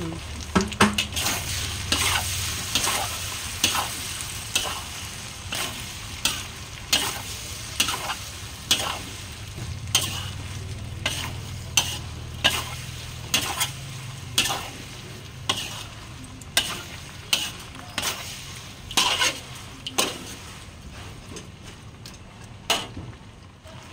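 Stir-frying in a stainless steel wok: a metal spatula scrapes and knocks against the pan about once a second over a steady sizzle. The strokes grow softer and sparser near the end.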